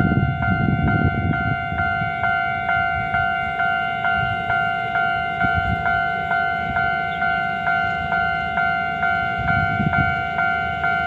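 Railway level-crossing warning bell ringing steadily, a two-tone ding struck about twice a second with each strike fading before the next: the warning that a train is approaching.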